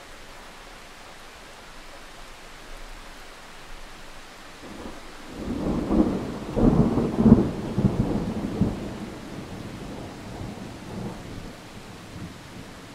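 A rolling rumble of thunder over a steady rain hiss. The rumble builds about five seconds in, is loudest for the next few seconds with jagged cracks, then dies away.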